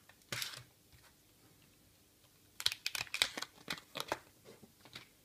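Plastic packaging bag crinkling and rustling in the hands as a clear plastic phone case is taken out. There is a short rustle near the start, then a quick run of sharp crackles and clicks from about halfway.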